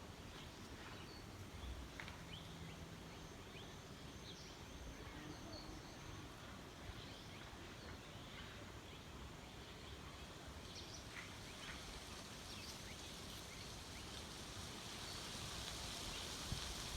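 Faint outdoor village ambience: a low, steady background with scattered brief, distant bird chirps, and a hiss growing louder near the end.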